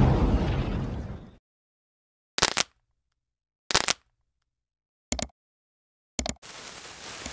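Explosion sound effect with a deep rumble, dying away over the first second and a half. It is followed by silence broken by four short sharp hits, about a second and a half apart, and a faint hiss near the end.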